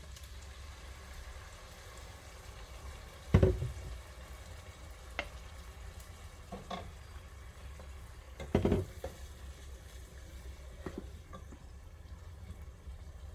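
Cooking-pot handling sounds: two loud clunks, about three and a half and nine seconds in, and a few lighter knocks as hot water is poured from an electric kettle into a stockpot and the pot is stirred with a wooden spoon, over a steady low hum.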